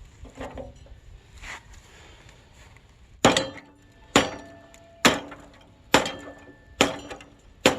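Six hard metal-on-metal blows, about one a second, each ringing briefly afterward, as a hand tool is struck against a rusted, stuck metal part.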